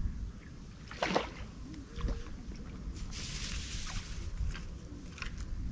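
Hooked carp splashing at the surface while being played on a margin pole's elastic: a couple of sharp splashes about a second and two seconds in, then a longer wash of water about three seconds in.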